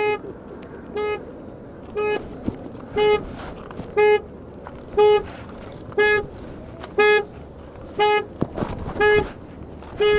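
Car horn honking in short blasts at a steady rhythm, about one a second, because the car alarm has been set off.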